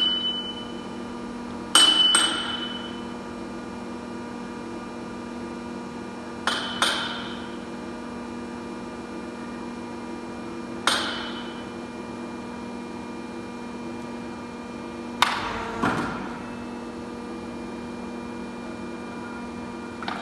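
A hand hammer striking the steel tooling of a pipe-bending machine: about seven blows, several in quick pairs, a few seconds apart, each ringing briefly. A steady machine hum runs underneath.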